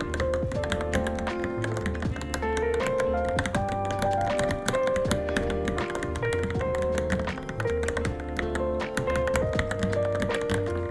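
Fast, continuous typing on a Varmilo Minilo mechanical keyboard, a dense, uneven stream of key clicks, heard over background music with a clear melody.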